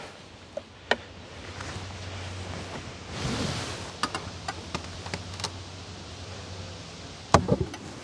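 Wooden beehive parts clicking and knocking as the metal-topped outer cover is handled and lifted off the hive, with a scatter of light taps in the middle and a sharper cluster of knocks near the end.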